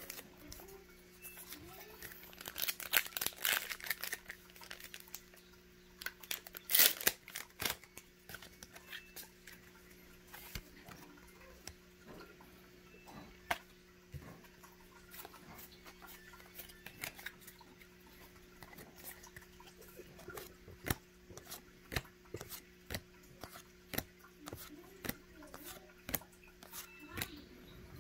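A foil Pokémon TCG booster pack being torn open and crinkled about 2 to 4 seconds in, with a sharp crackle of the wrapper near 7 seconds. After that come many small clicks and taps as the cards are handled, over a faint steady hum.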